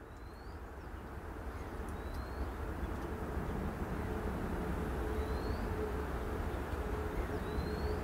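Outdoor wetland ambience: a steady low rumble that grows louder, with a short rising bird chirp heard four times and a faint steady hum that comes in about two seconds in.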